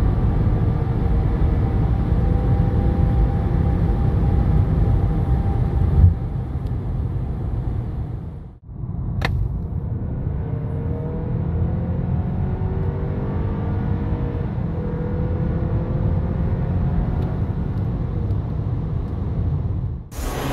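2021 Kia Sorento's 2.5-litre turbocharged four-cylinder engine pulling at full throttle, heard from inside the cabin over loud road and tyre rumble, its note rising with speed. A brief jump in loudness comes about six seconds in, the sound breaks off about eight and a half seconds in, and a second full-throttle pull from about 80 km/h starts and climbs.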